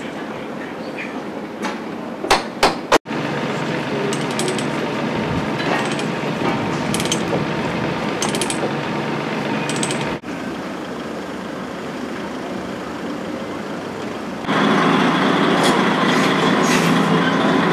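A few sharp metal clanks, then the clinking of a steel lashing chain being tensioned on a low-loader trailer over a steady background hum. Near the end a heavy lorry's diesel engine comes in, louder and steady.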